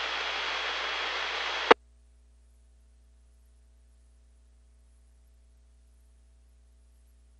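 FM radio receiver hiss from a 2-metre repeater's squelch tail, with a faint steady high tone in it, after the transmitting station unkeys. Under two seconds in it cuts off suddenly with a click as the repeater drops its carrier and the squelch closes. Then only a faint mains hum remains.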